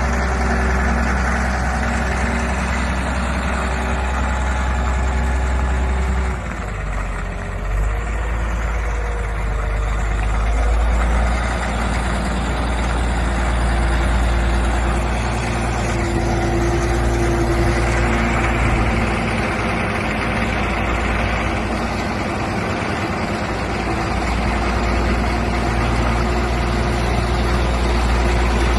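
Caterpillar 12G motor grader's diesel engine idling steadily, low and even.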